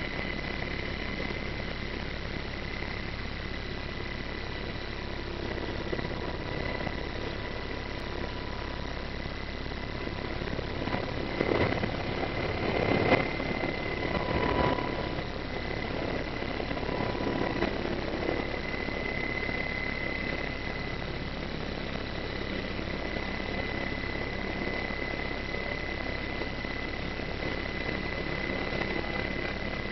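A military medevac helicopter's engines and rotor heard from inside the cabin as it descends to land: a steady drone with a high whine over it, swelling louder for a few seconds about halfway through.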